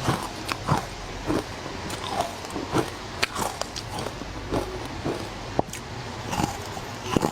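Crunchy bites into frozen matcha ice, a dozen or so sharp crunches at irregular spacing, close to the microphone.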